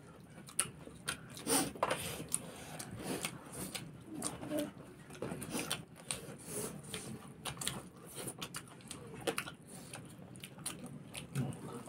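People eating rice and chicken with their hands: irregular chewing, lip smacks and small mouth clicks.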